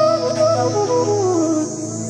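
Background music: a flute melody that steps downward over a steady held drone.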